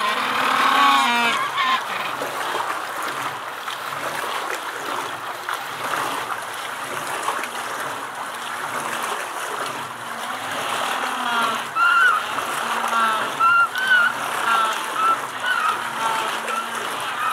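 Humboldt penguins giving short honking calls, a run of them in the second half, over a steady rush of running water.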